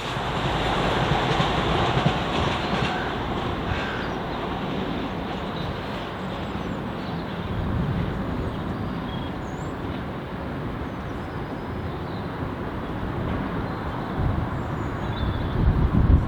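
A train running past on the line: a steady rumble of wheels on rail.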